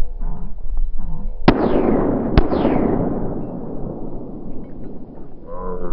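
Two shotgun shots a little under a second apart, each followed by a long rolling echo that fades over several seconds.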